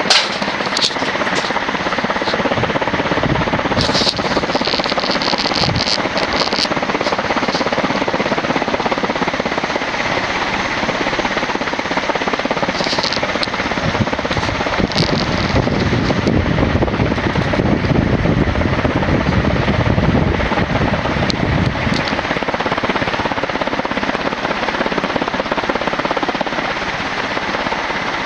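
TAT 56-inch industrial ceiling fan with a cast aluminum motor and aluminum blades running at full speed: a steady rush of air from the blades. A few light ticks come about 4 to 6 seconds in and again around 13 to 15 seconds, which the owner puts down to a balloon string rubbing inside, and a low rumble swells up in the middle.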